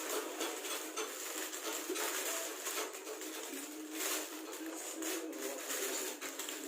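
Handling noise from unpacking and looking over a power amplifier: light rustling with scattered small clicks and knocks.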